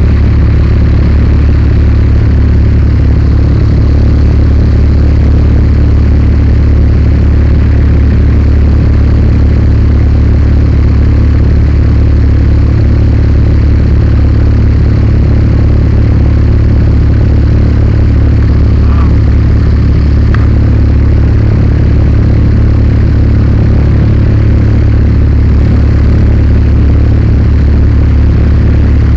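Zlin 42 light aircraft's piston engine and propeller droning steadily in flight, loud from inside the cockpit.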